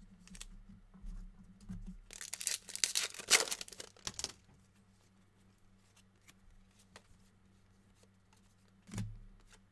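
A trading-card pack wrapper torn open: a rasping rip from about two seconds in, lasting about two seconds and loudest near the middle. Faint clicks of cards being handled come before and after it.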